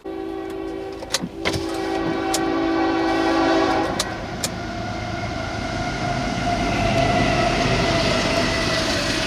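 Diesel locomotive horn sounding a steady chord for about four seconds while a train approaches, then the train running past with sharp wheel clicks on the rail and a slowly falling tone.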